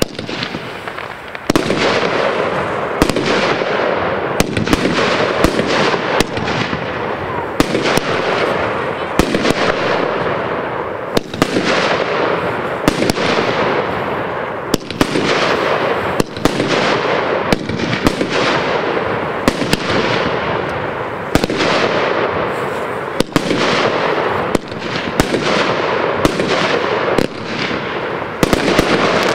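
Royal Fireworks Flowers World firework cake firing its shots in steady succession, about one a second. Each shot is a sharp launch bang followed by a rushing hiss that fades as the next one fires.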